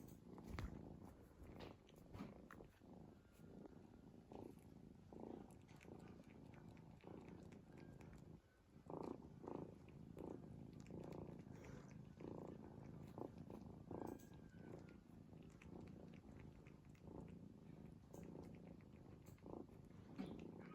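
Faint, rhythmic snoring of a sleeping cat, one soft breath after another, pausing briefly about eight seconds in.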